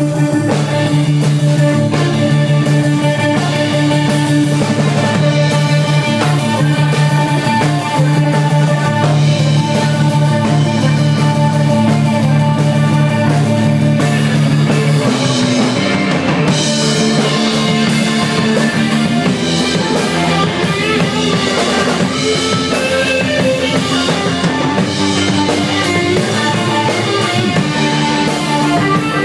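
Rock band playing live and loud, guitar and drums. Held low notes carry the first half, and the part changes about halfway through.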